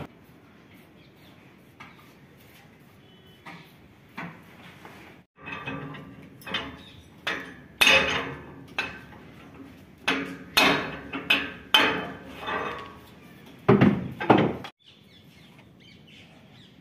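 Hand hammer striking the metal of a Swaraj 8100 combine harvester's threshing section: about a dozen sharp, ringing metal blows, irregularly spaced, that start a few seconds in and stop near the end.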